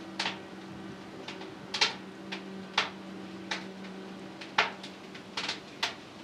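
Sharp, irregular clicks and taps, about ten of them spaced unevenly, over a steady low hum.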